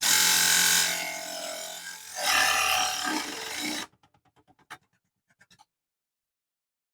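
Mini table saw's small motor running with its blade cutting through thin aluminum channel: a loud grinding rasp over a steady hum, easing after about a second, then loud again for a second and a half before cutting off abruptly. A few faint clicks follow.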